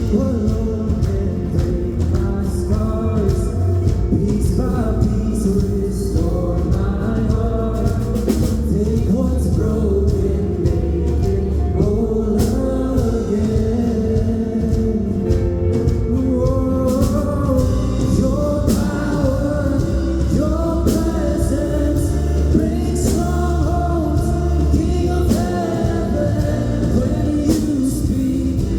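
Live church worship music: a band playing with voices singing a praise song.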